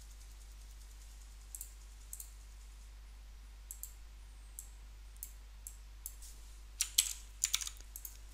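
Scattered clicks of a computer mouse and keyboard: a few single clicks, then a quick run of louder clicks about seven seconds in, over a faint steady low hum.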